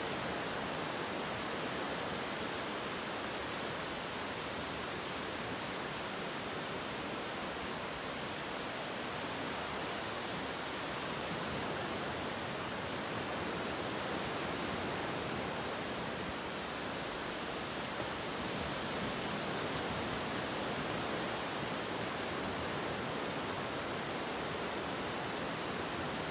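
A steady, even rushing hiss with no strokes or rhythm, holding at one level throughout.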